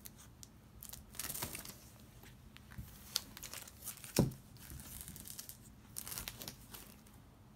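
Clear plastic bag crinkling and rustling as bagged comic books are handled, with a sharp tap a little past four seconds in.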